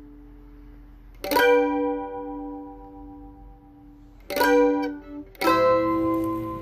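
Mandolin played slowly: three chords struck about a second, four and five seconds in, each left to ring out.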